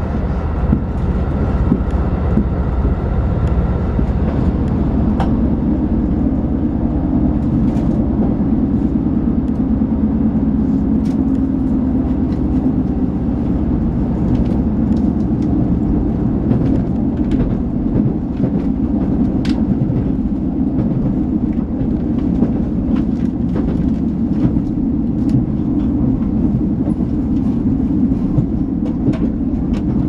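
Inside the cabin of a diesel express train running along the line: a steady rumble of engine and wheels on rail, with scattered light clicks from the track.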